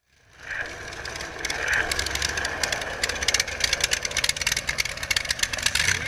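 Rat rod's exposed engine running as the car moves slowly, fading in at the start and getting louder about a second and a half in, with a rapid rough chatter over a low rumble.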